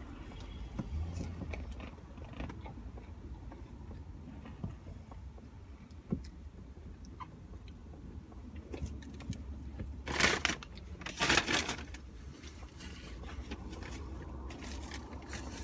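Eating in a car: a steady low hum, small clicks and rustles of food and hands, and two louder rustles of paper food packaging about ten and eleven seconds in.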